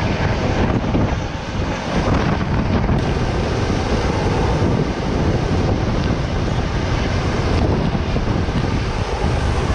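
Loud, steady rush of a hovering helicopter's rotor downwash blasting the microphone, with the helicopter's engine and rotor noise mixed in.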